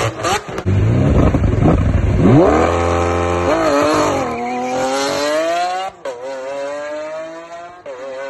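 Lamborghini Aventador LP700-4's V12 through a valvetronic exhaust with cat-less mid pipes. A few sharp revs give way to a hard launch with wheelspin, and the car accelerates away. The engine pitch climbs in each gear, with three upshifts marked by sudden drops, and the sound grows fainter as the car draws away.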